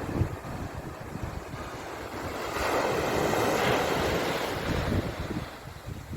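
Sea waves washing ashore, one wave swelling to its loudest about three seconds in and then ebbing away, over a low flickering rumble of wind on the microphone.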